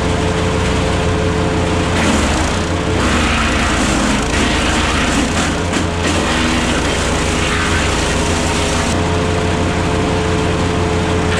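Petrol wood chipper's engine running steadily at working speed. From about two to nine seconds in, a rougher, noisier sound rises over the engine note.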